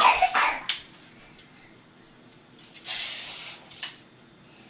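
A young child making a hissing 'pshhh' sound effect with his mouth, about a second long near the middle, as a pretend squirt or laser shot. A few light clicks around it.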